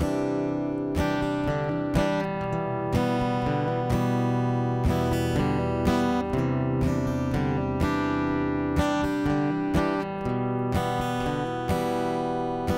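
Acoustic guitar strumming chords in a steady rhythm, with a strong stroke about once a second: the instrumental intro of a song, before any singing.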